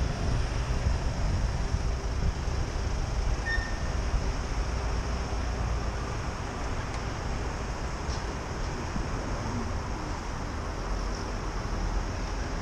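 City road traffic noise heard while cycling. Wind rumbles on the helmet microphone at first and eases off as the bike slows to a stop at the traffic lights, leaving a steady traffic hum.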